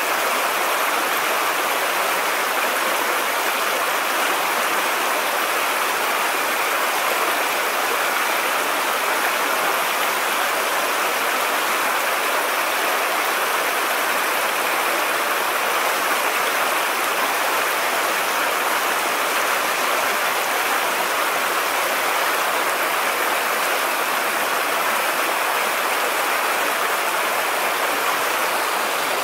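Flowing river water rushing steadily, an even hiss that does not change.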